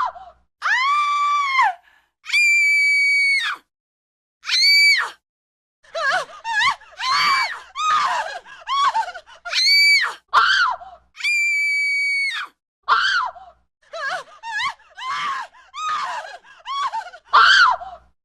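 A woman screaming: a string of separate high-pitched screams and shrieks, a few long and held, most short, broken by brief silences.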